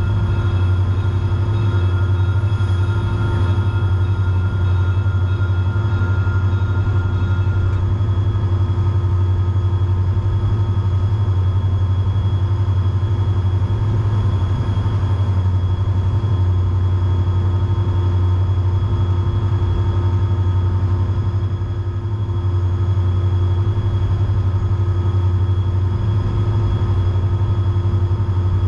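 Steady low drone of an EMD SD40-3 diesel-electric locomotive's 16-cylinder two-stroke engine running under way, with train running noise and several steady whining tones above it; a couple of the higher tones drop out about eight seconds in.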